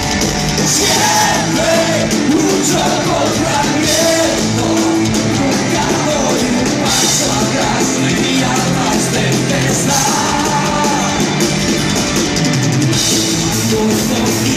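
Heavy metal band playing live: electric guitars, bass and a drum kit with cymbals, with a male singer's voice coming in and out over them.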